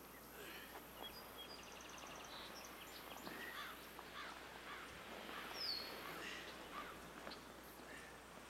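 Small birds chirping faintly over outdoor background noise, with a short rapid trill about a second and a half in and one clearer falling whistle a little past halfway.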